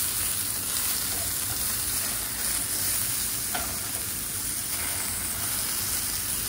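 Sliced zucchini sizzling steadily in a frying pan over medium heat, already starting to scorch a little, with a light click about three and a half seconds in.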